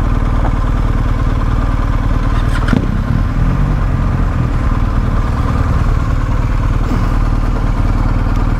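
Motorcycle running at a steady cruise, a constant engine drone under wind noise, with one brief click about two and a half seconds in.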